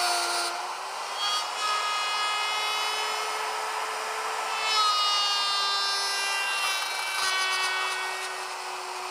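Handheld router with a guide collar cutting dovetail tails and pins in plywood drawer parts on a dovetail jig: a steady motor whine over the noise of the cut, its pitch shifting a little as it works along the template.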